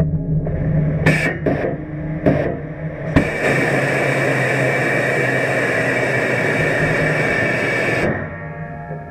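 New Shepard crew capsule's control thrusters heard from inside the cabin over a low steady hum: a few short puffs, then one loud steady hiss of about five seconds that cuts off suddenly.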